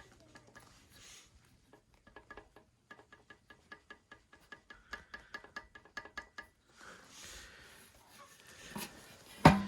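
A run of light, evenly spaced clicks, about three to four a second for several seconds, then a single sharp knock near the end.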